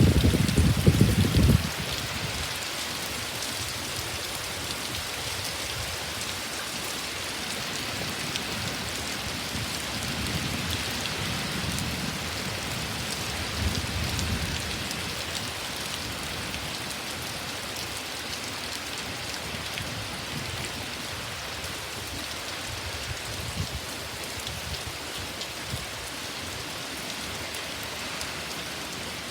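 Heavy rain pouring steadily, with a low rumble in the first second or two and softer low rumbles around the middle.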